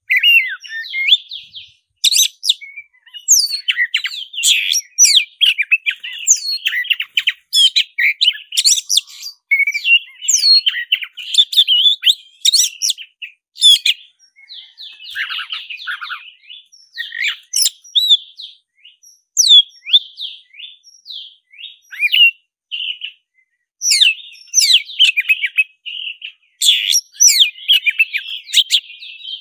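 Black-breasted oriental magpie-robin singing loudly and almost without pause: a fast, varied run of sharp whistles, sweeping notes and a stretch of harsh chatter, broken by short gaps between phrases. This is the bird's aggressive fighting-mode song, which keepers call "gacor tarung".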